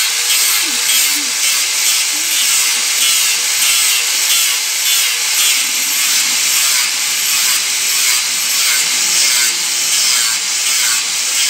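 Hand-held angle grinder fitted with a sanding disc running steadily while shaping a wooden spoon blank, the abrasive disc hissing against the wood. The sound pulses a few times a second as the disc is worked back and forth over the wood.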